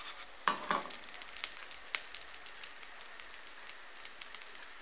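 Mkhanfar semolina pancake frying in oil in a non-stick pan, a steady sizzle with many small crackles as its second side cooks. Two knocks about half a second in.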